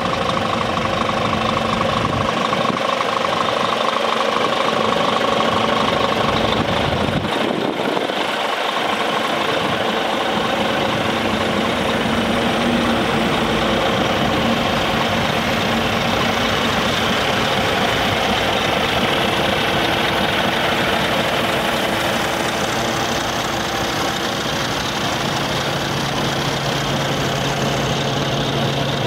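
Scania R400 hook-lift truck's diesel engine idling steadily.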